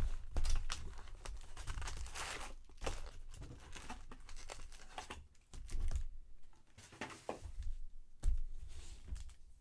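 Trading card packaging being torn open and crinkled by hand: irregular tearing, crackling and rustling of wrappers, dying down near the end.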